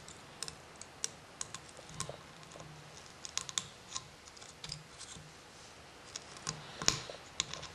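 Light, irregular clicks and taps of fly-tying tools as the thread is whip-finished at the vise, with one louder click near the end.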